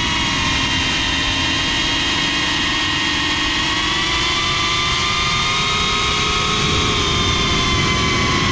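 Geprc CineLog 35 cinewhoop's brushless motors and propellers whining in flight, picked up on board with wind rush beneath. The whine is steady, its pitch rising a little through the middle and easing back near the end as the throttle changes.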